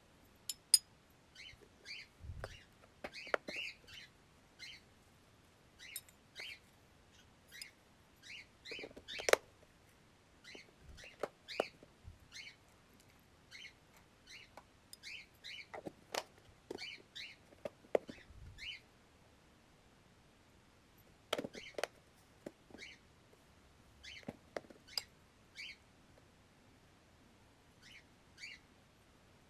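Pet cockatiels giving short, scattered chirps, mixed with sharp clicks and a few low thumps.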